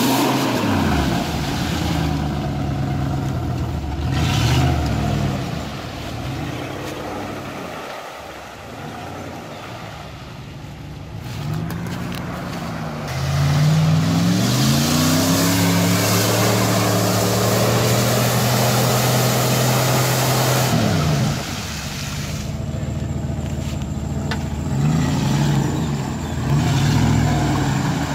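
Off-road 4x4's engine revving up and easing off again and again, with a loud stretch held at high revs for several seconds in the middle.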